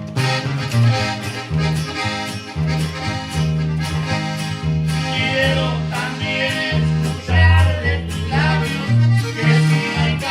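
Norteño band playing live: accordion carrying the melody over a bass line and a steady beat, with no singing.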